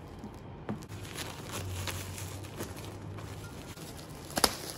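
Plastic shrink wrap crinkling softly as a wrapped fabric organizer is handled and turned over, with scattered light crackles and one sharp click near the end.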